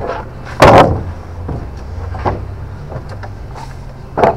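Wooden scaffold boards knocking on steel trestles: a loud knock about half a second in, a few lighter knocks, and another loud knock near the end, over a steady low hum.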